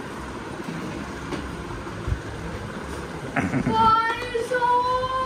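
A child's drawn-out high-pitched call, held for about a second and a half near the end with its pitch rising slightly. It follows a sharp knock and sits over a steady low rumbling noise.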